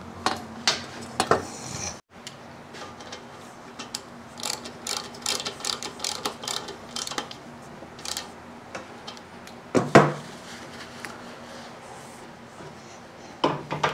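Ratchet wrench clicking in quick runs while tightening a front axle nut, with several sharp metal knocks; the loudest knock comes about ten seconds in.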